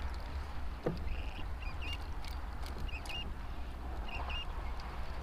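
Wind rumbling on the microphone over water lapping at a kayak hull, with a few short, faint bird chirps repeating about once a second and some light clicks.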